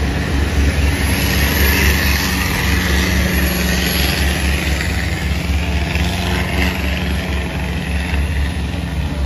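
Boat engine running steadily with a fast low throb, over the rushing hiss of river water.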